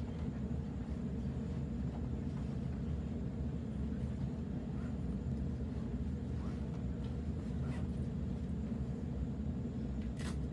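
Interior of a Sydney Trains Waratah B-set electric train carriage: a steady low rumble and hum from the train, with a sharp click near the end.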